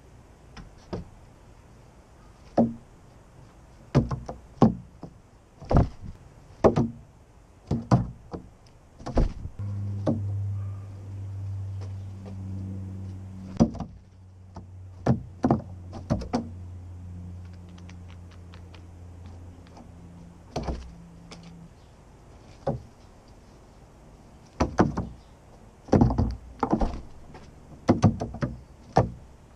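Scattered sharp knocks and thumps on a hollow plastic recycling bin lid, some in quick clusters, from birds landing and pecking at peanuts. A steady low hum comes in about ten seconds in and fades out about ten seconds later.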